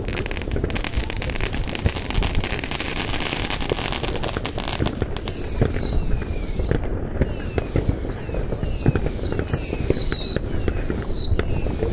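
Fireworks going off all around, with scattered bangs and crackling throughout. The first half is a dense, hissing crackle; from about five seconds in comes a run of whistling fireworks, each whistle falling in pitch, about one a second.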